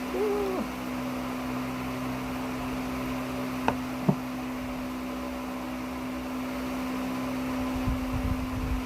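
Steady low electrical hum, with two short clicks a little after the middle and some low rumbling near the end.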